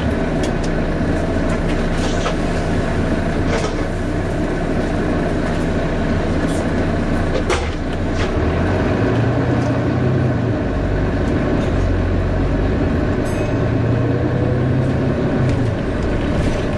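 Volvo B9TL double-decker bus heard from inside: diesel engine and cooling fan running with a steady whine that rises in pitch near the end, over scattered rattles and clicks from the body.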